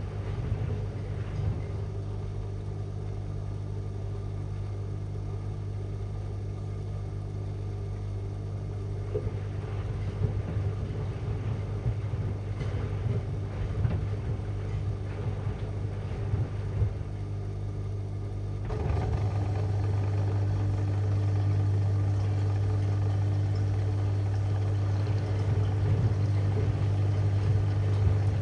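AEG Lavalogic washing machine running with a steady low hum. About two-thirds of the way through, the sound steps up suddenly to a louder hum with an added higher steady tone.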